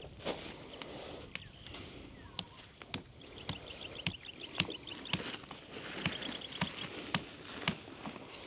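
Sharp knocks at a steady pace of about two a second, some leaving a faint high ring, with a bird's fast high trill twice in the middle.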